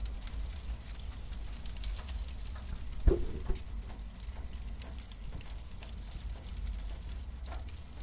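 Cardboard burning: irregular crackling and light snapping over a low steady rumble, with one louder pop about three seconds in.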